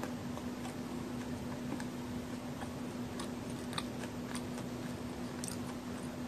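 Scattered faint crackles and small clicks of a crumbly homemade chocolate-and-raisin cookie held in gloved fingers, over a steady low hum and hiss.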